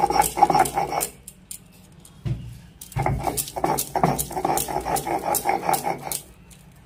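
Stone roller grinding wet banana flower paste on a flat stone slab (sil-batta) in quick back-and-forth strokes. The strokes stop about a second in, a low thump comes a little after two seconds, and the quick grinding starts again about three seconds in, stopping just past six seconds.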